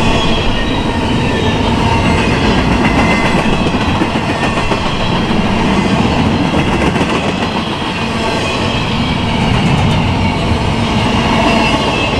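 Empty intermodal well cars of a freight train rolling past, their steel wheels running on the rails in a steady, loud rumble.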